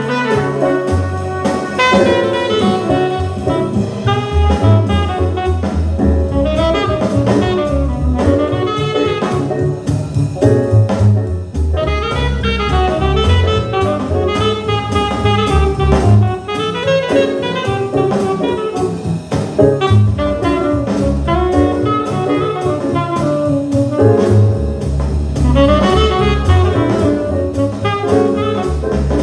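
Jazz record playing on a Garrard 401 turntable through an Ortofon SPU-G moving-coil cartridge and valve amplifiers, heard in the room: continuous music with a steady pulsing bass line.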